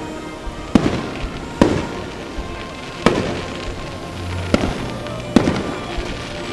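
Aerial fireworks bursting: five sharp bangs at uneven intervals, each trailing off in a fading rumble, with music playing underneath.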